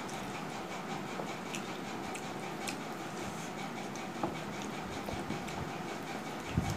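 Eating sounds of two people eating rice and curry by hand from steel plates: chewing and small clicks of fingers working rice on the plates, with a dull knock near the end.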